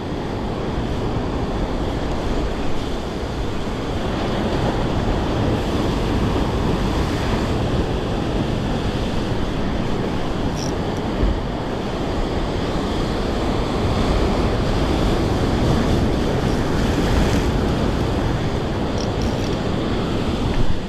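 Ocean surf washing steadily onto the beach, with wind rumbling on the microphone.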